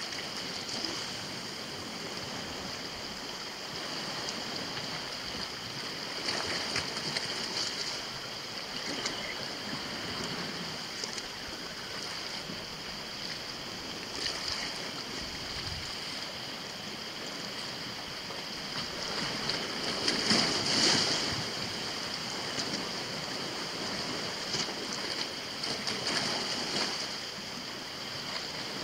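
Sea waves washing against a rocky shore, swelling and fading every few seconds, with the loudest surge about twenty seconds in, over a steady high hiss.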